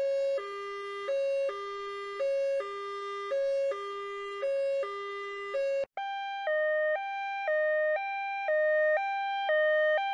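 Two-tone hi-lo emergency vehicle siren, switching back and forth between a higher and a lower note about once a second. About six seconds in it cuts to a different two-tone siren, pitched higher and alternating a little faster.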